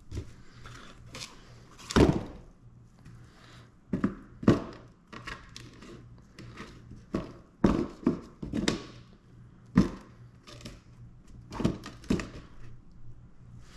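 Irregular knocks and thunks, a dozen or so, from a cardboard box and a resin-coated 3D-printed plastic mold being handled and set down on a wooden workbench.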